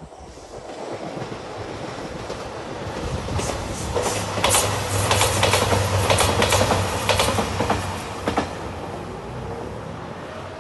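JR Shikoku 2700-series diesel limited express train passing close by. A low drone builds, then the wheels clack over rail joints in a quick run of sharp beats through the middle, and the sound fades away near the end.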